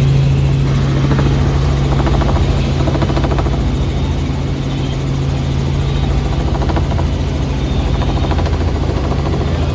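Helicopter in flight, heard from inside the cabin: its engine and rotor make a steady, loud low drone with a fast pulsing beat.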